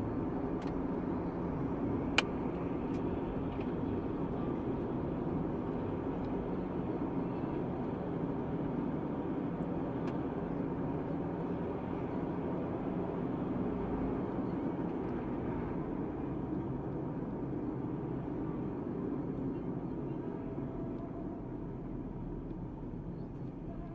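Steady road and engine noise inside a moving car, picked up by a dashcam, with one sharp click about two seconds in.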